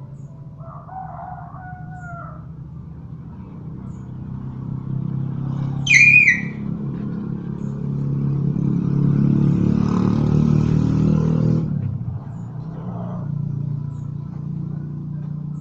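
Hill myna calling over a steady low hum: a two-note whistle about a second in, then one short, sharp, loud call about six seconds in, followed by a longer swelling, noisy sound.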